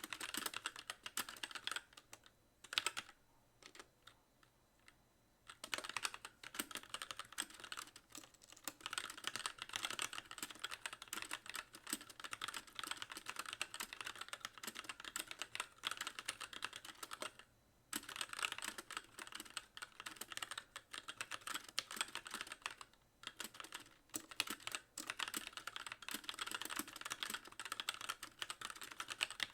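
Continuous typing on a Magicforce mechanical keyboard with very light Gateron Clear linear switches and stock keycaps, the keys bottoming out on each press. The typing stops for about three seconds a few seconds in, then runs on with brief breaks.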